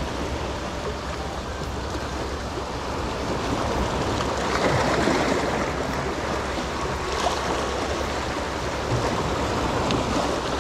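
Small waves washing and splashing against the rocks of a stone jetty, a continuous wash that swells and eases.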